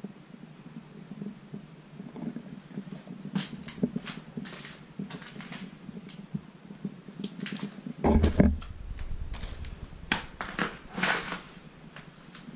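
A wooden door being shoved open: scattered knocks and scrapes, then a heavy thump about eight seconds in, followed by a low rumble and a run of sharp knocks and creaks. A low steady hum runs underneath.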